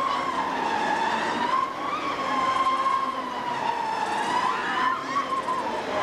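Many riders on a swinging amusement ride screaming together, a continuous wavering chorus that rises and falls slowly without a break.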